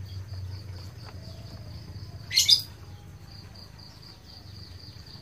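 Insects chirring steadily in a fast, even pulse, with a short, bright bird chirp about two and a half seconds in.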